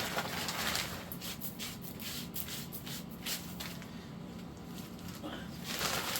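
Light scraping and rustling, with a quick run of short scrapes about a second in and another swell of rustling near the end.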